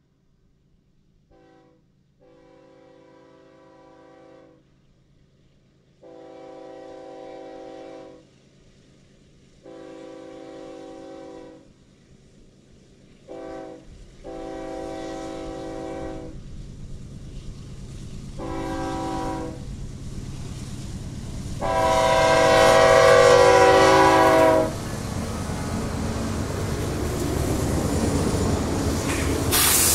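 A BNSF freight locomotive sounds its multi-chime air horn in a series of long and short blasts as the train approaches, growing louder. The last long blast is the loudest. The locomotives and wheels then pass close by in a rising rumble, with one sharp crack near the end.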